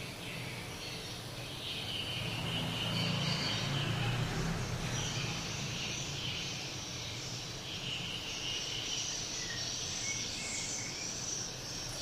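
Swiftlets twittering: high, thin chirping calls that come and go in patches, over a low steady hum.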